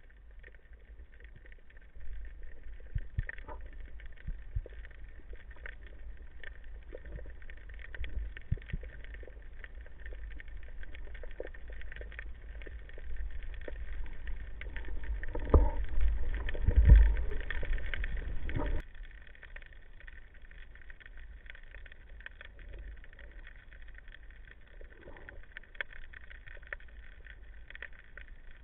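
Muffled underwater sound of a spearfishing dive: a low rumble of water and the diver's movements with scattered clicks and knocks. Past the middle it swells into a few seconds of louder thumping and rumbling, then drops off suddenly.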